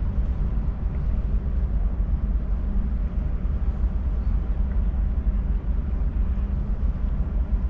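Wind buffeting the microphone: a steady low rumble that flutters irregularly.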